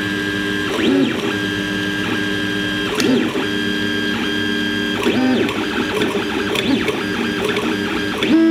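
3D printer's stepper motors whining at several steady pitches as the print head moves, with a few short sweeps up and down in pitch as the moves change speed.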